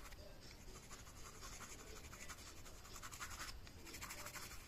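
Faint scratching of a white coloured pencil being stroked over tempera-painted card, a run of short strokes laying in highlights.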